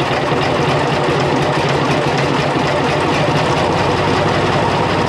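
International 484 tractor's D-179 three-cylinder diesel idling steadily just after starting, with the valve cover off and the rocker arms working in the open. The valve lash has just been freshly adjusted.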